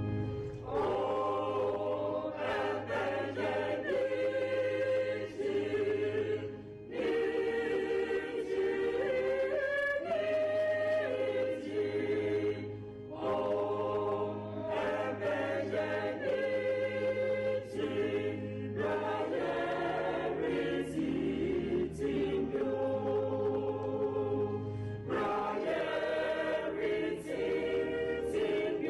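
Mixed church choir singing in harmony, in long phrases with short breaks between them.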